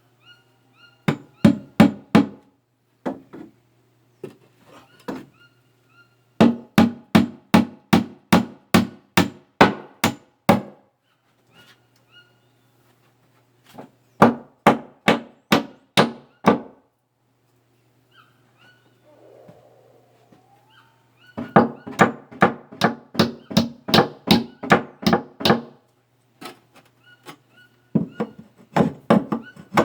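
Hammer blows on wood, most likely nails being driven while building a cabinet: runs of rapid strikes, about four a second, in five bursts with short pauses between them.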